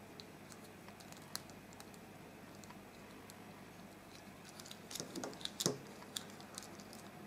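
Faint small clicks and ticks of plastic from handling and posing two jointed S.H.Figuarts Body-kun and Body-chan artist figures, scattered throughout, with a busier run of slightly louder clicks and handling noise about five seconds in.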